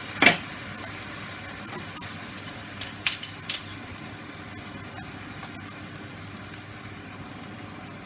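A sharp knock, then a quick run of metal-and-glass clinks about three seconds in, as the emptied tin and utensils are handled at the frying pan. Under and after them, a faint steady sizzle from the pan of chicken, chopped tomatoes and chili beans.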